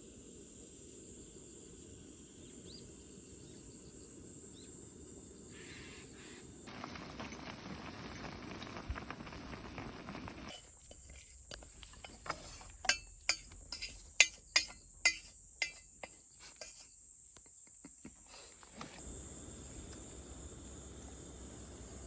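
Low steady background noise, broken near the middle by a run of sharp clicks; the loudest half-dozen come about two a second.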